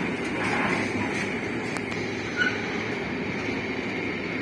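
Intermodal freight train's wagons rolling steadily past on the track. A brief sharp squeak comes about two and a half seconds in.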